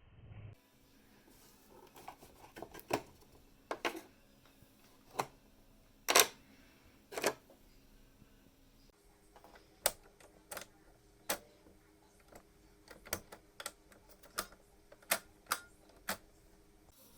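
Irregular sharp clicks and knocks of hand tools and small hard parts being handled, over a faint steady hum.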